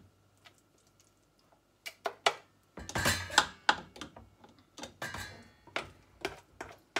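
Wooden spoon knocking and scraping against a stainless-steel saucepan and a plastic funnel while hot marmalade is spooned into a jar. A couple of knocks come about two seconds in, then a quick run of sharp clicks and knocks follows from about three seconds in.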